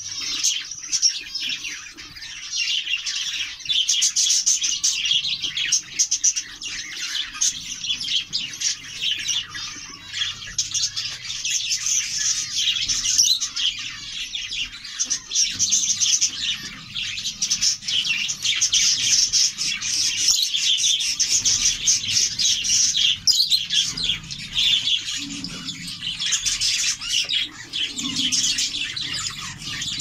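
Budgerigars chirping and twittering without a break, a dense, rapid, high-pitched chatter.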